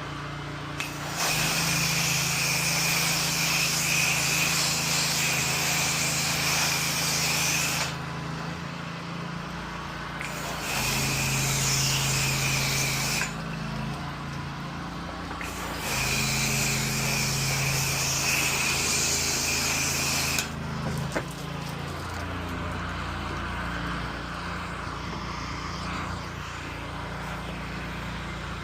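Gas pressure washer engine running steadily while the spray gun is triggered three times, each time a loud hiss of water jet lasting several seconds with a whistling tone in it. The engine note shifts as the spray starts and stops.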